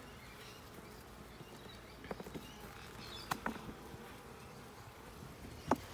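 Honeybees humming from an open hive, with a few sharp clicks and knocks, the loudest near the end, as a metal hive tool pries at the wooden frames.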